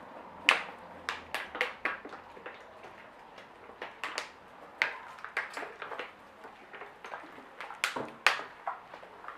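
Sticky shaving-foam slime squeezed and kneaded by hand after borax activator is added, giving irregular wet clicks and snaps, several a second, with the loudest about half a second in and near the end.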